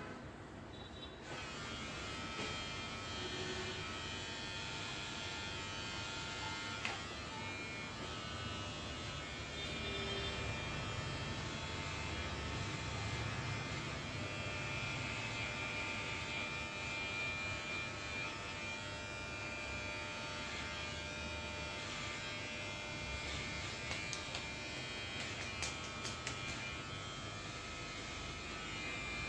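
Small handheld electric motor buzzing steadily, starting about a second in, with a few faint clicks over the hum.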